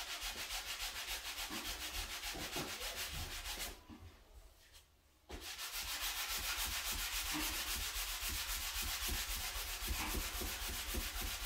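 Sanding sponge rubbed in quick back-and-forth strokes over dried lightweight spackle on a painted wood door casing, smoothing the filled nail holes flush. The scratching stops for about a second and a half about four seconds in, then resumes.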